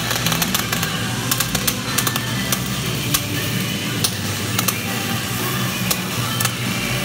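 MIG welding arc crackling steadily and irregularly as a fillet weld is laid, with music playing underneath.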